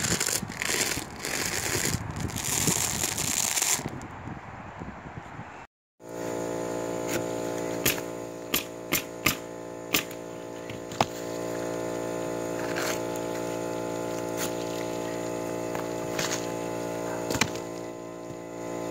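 Asphalt shingles being handled and cut with a utility knife, heard as sharp clicks, crackling and scraping. For most of the time a steady machine hum runs underneath. The first few seconds hold a rougher, rushing noise before the sound cuts out briefly.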